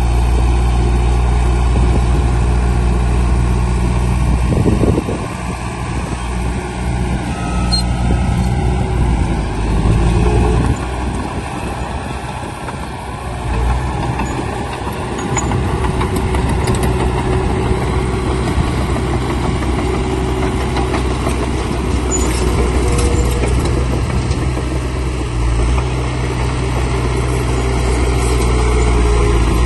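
Heavy diesel engine of earthmoving machinery running, its note and load changing several times: it drops about five seconds in, surges and eases around the middle, and picks up again near the end.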